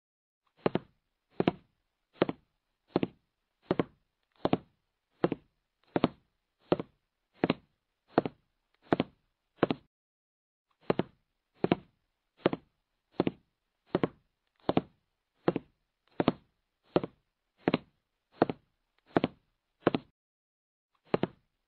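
Countdown timer sound effect: evenly spaced knocking ticks, a little more than one a second, with a brief pause about halfway through. A sharp click comes right at the end.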